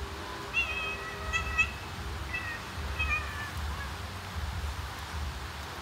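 Mother cat calling her kittens to follow her: about four short, high chirping calls in quick succession in the first few seconds.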